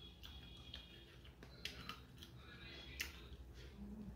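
Faint, close-up sounds of someone eating meat by hand: scattered wet clicks and smacks of chewing and handling the food, the sharpest one about three seconds in.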